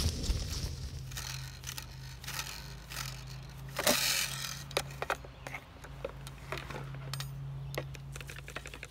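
Metal rake tines scraping through grass and clicking against a lined waste bag: scattered sharp clicks with a short, louder scrape about four seconds in, over a steady low hum.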